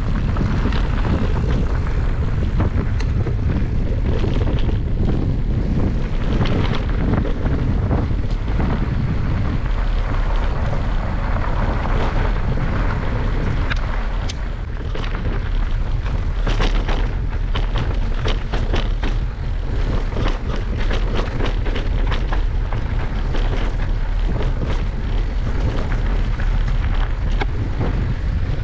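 Wind buffeting the microphone as an electric mountain bike is ridden, a steady low rumble. From about ten seconds in, a scattered run of sharp clicks and knocks joins it, the bike rattling over rough trail.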